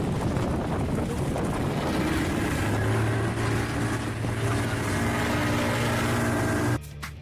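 Wind buffeting the microphone over a boat's engine; a steady engine hum comes up about a third of the way in. The sound cuts off abruptly near the end.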